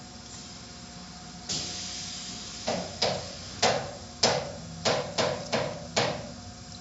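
Automatic tunnel car wash heard from inside a car: a steady machinery hum, then a rush of spray about a second and a half in. After that comes a string of about eight sharp slaps, irregular at roughly two a second.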